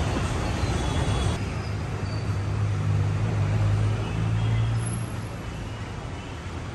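Low, steady rumble of road traffic, with a vehicle engine hum strongest in the middle; the higher hiss drops away suddenly about a second and a half in.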